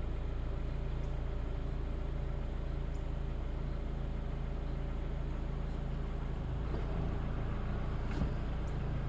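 Steady low motor-vehicle hum with a constant engine drone, with a short click about eight seconds in.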